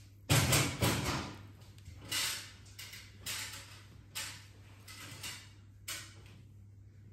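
A metal spoon scraping against a ceramic plate as it cuts into a soft chocolate lava cake: a loud pair of scrapes just after the start, then about five shorter ones roughly a second apart. A faint steady low hum runs underneath.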